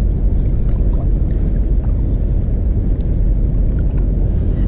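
Steady wind rumble buffeting the action camera's microphone, with a few faint ticks.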